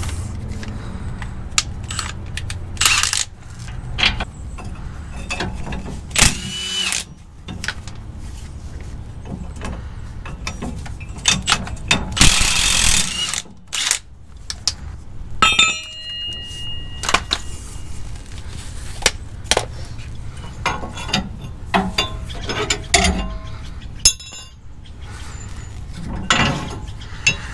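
Cordless power wrench with a 21 mm socket running in short bursts to spin the U-bolt nuts off a Ford F-150's rear leaf-spring axle, mixed with clinks and clanks of the loose nuts, socket and U-bolts against metal. A metal clank rings briefly a little past halfway.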